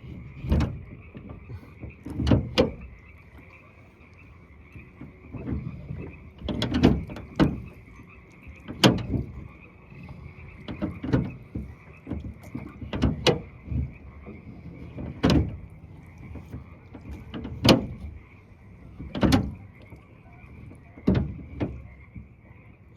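A frog chorus calling steadily, overlaid by loud, sharp knocks and thumps every second or two, which are the loudest sounds.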